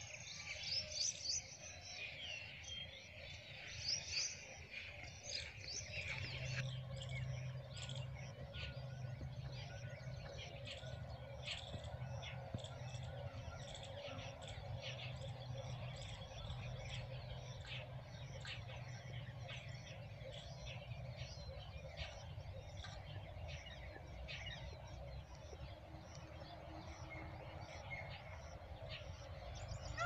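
Several small birds chirping and tweeting, with many short high calls overlapping and busiest in the first few seconds. A steady low background rumble runs underneath.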